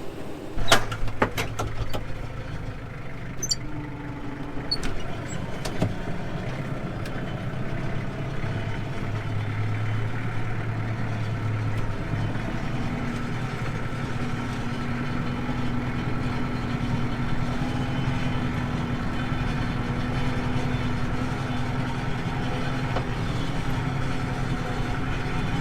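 An engine running steadily, its tone changing about halfway through, with a few sharp knocks in the first two seconds.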